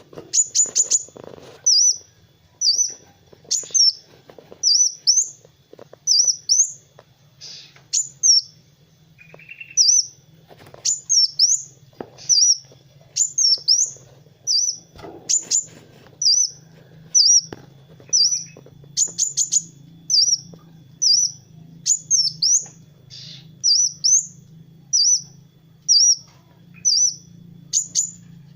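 Kolibri wulung (a sunbird) singing non-stop: a rapid run of short, very high-pitched chirps and twitters, one or two a second, some with quick downward-hooking notes, over a faint low hum.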